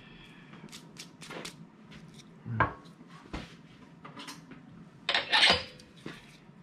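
A small dogwood log blank being handled at a wood lathe: a solid knock about two and a half seconds in as it is set down on the lathe's steel bed, with light clicks and taps around it, then a louder, longer clatter near the end as it is picked up and fitted against the headstock's drive spur.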